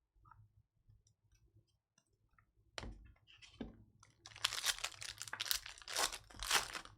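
Trading card pack wrapper being torn open and crinkled, a dense crackling that starts about four seconds in after two sharp rips, with faint clicks of cards being handled before it.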